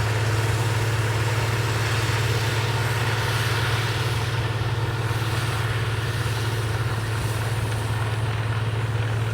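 Heavy-duty municipal snow blower's engine running with a steady, unchanging drone.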